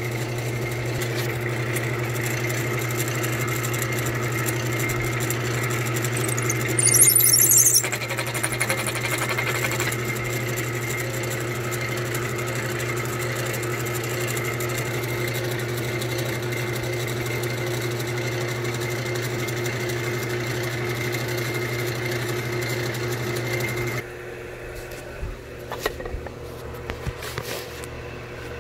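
Wood lathe running steadily with a long drill bit spinning in its headstock chuck, used to bore through a wooden chair spindle; a brief louder hiss comes about seven seconds in. About four seconds before the end the running sound stops abruptly, leaving a lower hum and a few handling knocks.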